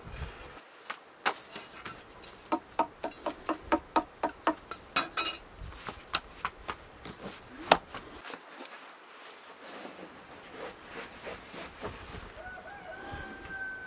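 Hand pats and slaps of flatbread making at a tandoor: a quick even run of about a dozen sharp pats, some three or four a second, then one louder slap and a few softer taps as the dough is handled on the cloth baking cushion.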